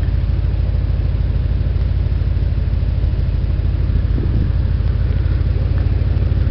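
1980 Chevrolet Corvette's V8 engine idling steadily, its exhaust a low, even pulse.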